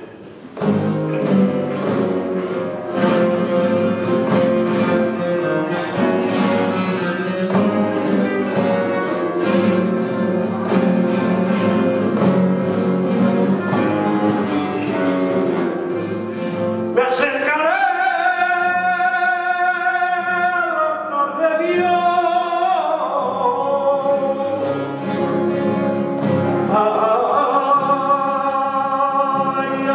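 Flamenco music: a guitar strums chords with quick rasgueado strokes. A little past halfway a male flamenco singer (cantaor) comes in over it with long, bending, held notes.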